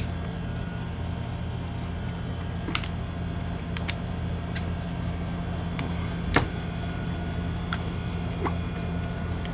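Steady low mechanical hum from running machinery, with a few brief clicks, the loudest about three and six seconds in.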